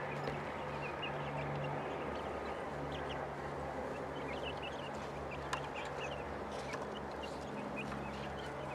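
Backyard poultry calling faintly: short high chirps and clucks scattered through, over a steady low hum.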